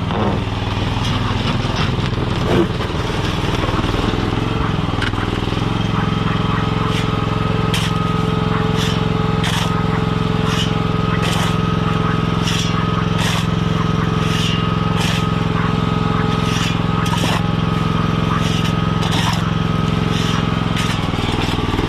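Mini skid steer engine running steadily under work, with a steady whine joining in about six seconds in and a regular ticking, roughly one to two ticks a second, from about seven seconds on.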